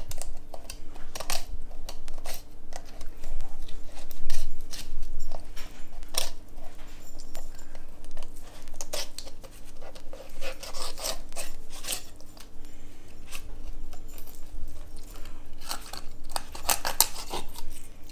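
Fillet knife sliding along a striped bass's rib cage on a wooden cutting board: irregular short scraping strokes as the blade rides over the rib bones, with a flurry of strokes near the end as the fillet comes free.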